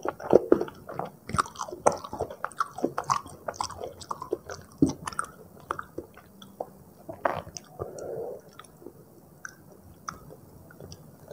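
Close-miked chewing of Indomie goreng rendang fried instant noodles: wet mouth clicks and smacks, busy at first and thinning out in the second half.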